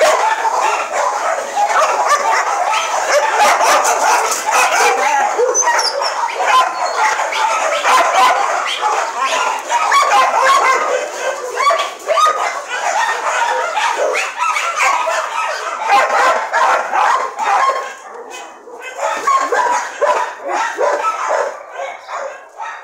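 Many dogs barking and yipping at once in a continuous, overlapping chorus, which thins out in the last few seconds.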